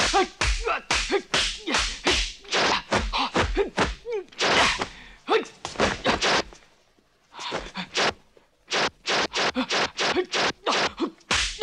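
Kung fu film fight sound effects: a rapid string of punch and kick whacks and swishes mixed with shouts and grunts. It breaks off for about a second and a half some seven seconds in, then resumes.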